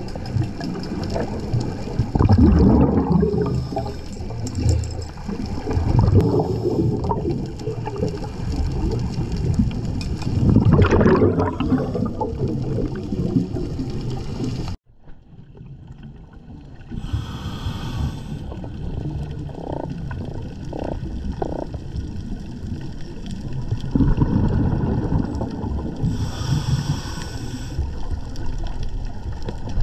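Scuba regulator breathing heard underwater: a hiss on the inhale and rumbling bursts of exhaled bubbles every few seconds. The sound cuts out abruptly about halfway through and comes back quieter before building up again.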